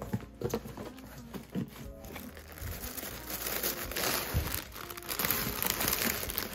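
Thin plastic bag and tissue-paper packaging crinkling and rustling as hands unwrap it in a cardboard box, busiest and loudest over the last few seconds.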